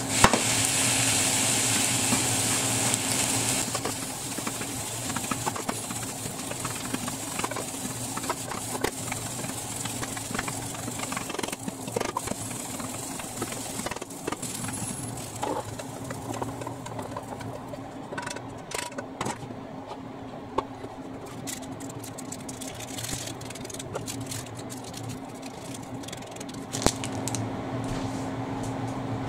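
Fried rice sizzling in a hot frying pan as it is stirred with a spatula, just after soy sauce has gone in; the sizzle is loud for the first few seconds, then dies down. After that come scattered scrapes and taps of the spatula against the pan as the rice is stirred and served, over a low steady hum.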